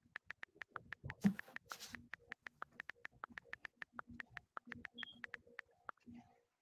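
iPhone on-screen keyboard clicking as a message is typed: a quick, even run of about six taps a second. There is a brief noisy burst about a second and a half in.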